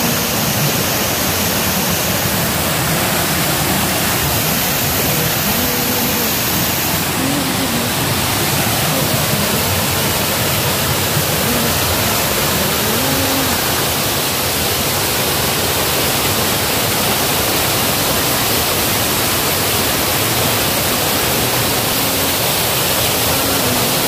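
Waterfall cascading over boulders, a steady loud rush of falling and splashing water.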